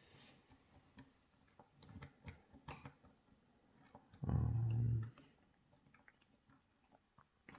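Small scattered clicks and scrapes of a tension wrench and deep hook pick working the pins of a KIK pin-tumbler cylinder. About four seconds in, a loud low hum lasts under a second.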